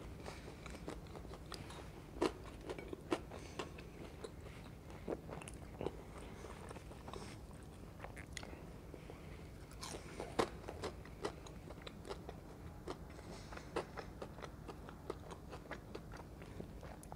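Close-miked chewing and crunching of crisp fried onion pakoras, with irregular sharp crunches, the loudest about two seconds in and again about ten seconds in.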